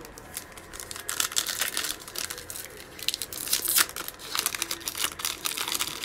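Foil wrapper of a 2020 Panini Mosaic football card pack crinkling and tearing as it is ripped open by hand, in quick irregular bursts of crackle, loudest a little under four seconds in.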